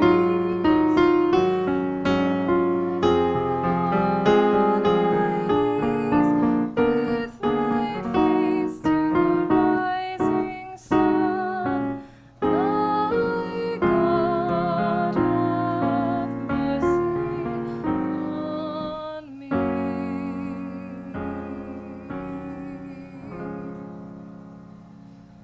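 Piano playing a slow hymn tune in separate, ringing chords and notes, with a wavering held melody line over it midway, fading out near the end.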